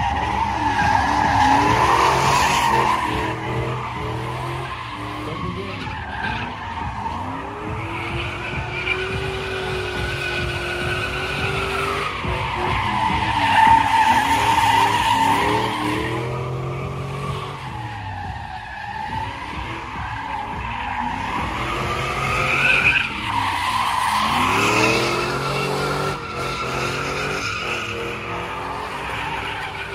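Pickup truck doing burnouts and donuts. Its engine revs up and down several times while the spinning rear tyres squeal and skid.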